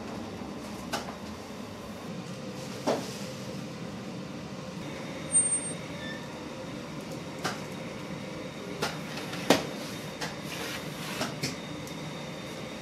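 Steady rumble of bakery machinery, with scattered sharp metal clanks and knocks from baking trays and the open deck oven.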